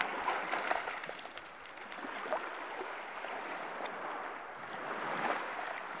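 Shallow sea water lapping gently at the shore: a steady soft wash with a few faint splashes.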